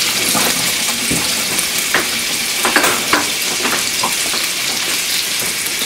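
Cubed chicken frying in hot bacon grease in a pan: a steady sizzle with scattered crackles and pops.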